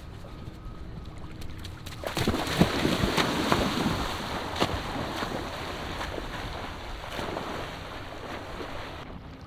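Water splashing as several people run into shallow sea water and start swimming front crawl, beginning about two seconds in with a burst of sharp splashes that gradually fades. Wind on the microphone runs underneath.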